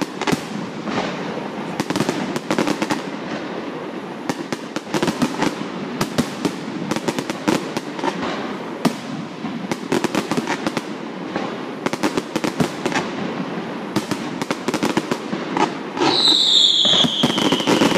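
Fireworks display: a dense, irregular run of bangs and crackling reports. Near the end a loud whistling firework sounds, its pitch sliding steadily down for about two seconds.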